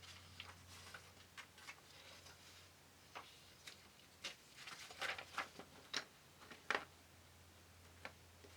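Soft, irregular clicks and light taps, a dozen or so, the loudest a little past the middle, over a faint steady low hum.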